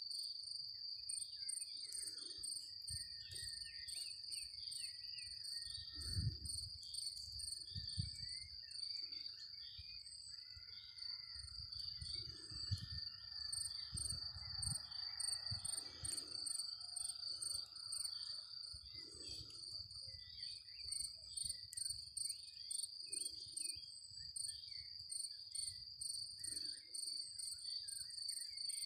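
Crickets chirping in a steady, high, continuous chorus, with low rumbles on the microphone now and then.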